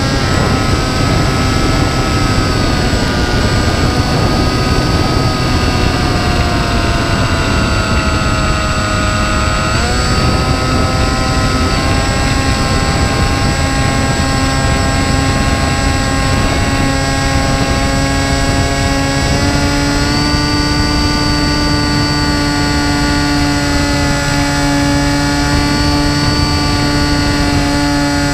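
Motor and propeller of an FPV RC flying wing heard from its onboard camera: a steady whine with a stack of tones whose pitch sinks slowly, jumps back up about ten seconds in as the throttle changes, and shifts again around twenty seconds. Heavy wind rush on the microphone runs underneath.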